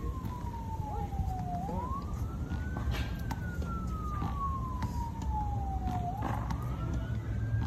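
A siren wailing, its pitch climbing quickly and then sliding slowly back down, one cycle about every four and a half seconds, over a steady low rumble.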